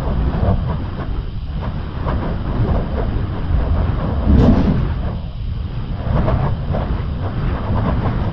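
Wind buffeting the microphone: an uneven low rumble, with a sharper, louder gust about four and a half seconds in.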